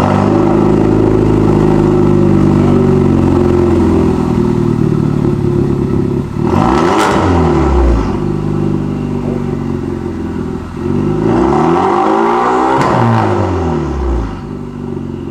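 Hyundai Veloster Turbo's turbocharged 1.6-litre four-cylinder running loud through a freshly fitted catless downpipe. It idles steadily, is revved briefly about seven seconds in, and is revved again, longer, about eleven seconds in before settling back.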